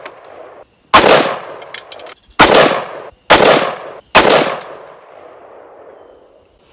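ATI Alpha Maxx all-polymer AR-15 rifle firing four semi-automatic shots, each about a second apart, each followed by a long fading echo.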